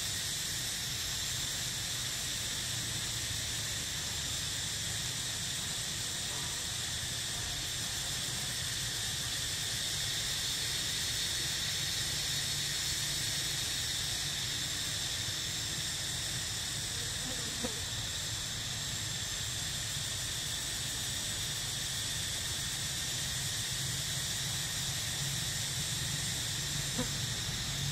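Steady high-pitched drone of insects calling, with a low steady rumble underneath and a couple of faint small clicks, one about two-thirds of the way in and one near the end.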